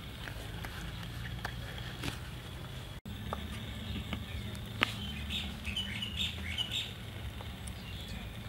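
Small birds chirping in a short flurry between about five and seven seconds in, over a steady low background hum, with a few sharp taps of a cleaver on a wooden chopping board as gherkins are sliced.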